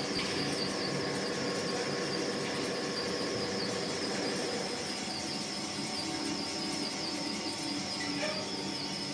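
Special-purpose twin-side four-axis CNC turning machine running, a steady machine noise with a constant high-pitched whine.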